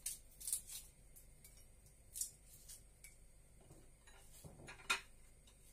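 Faint, scattered small crackles and ticks from a garlic clove's papery skin being peeled by hand, with a slightly louder click near the end.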